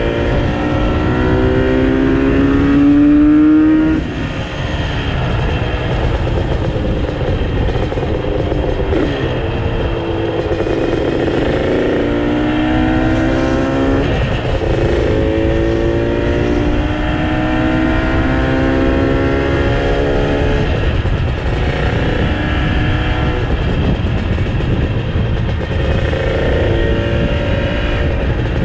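Yamaha RD350's two-stroke parallel-twin engine pulling hard while being ridden. The revs climb steadily and then drop back at each upshift, several times over, with heavy wind noise on the microphone underneath.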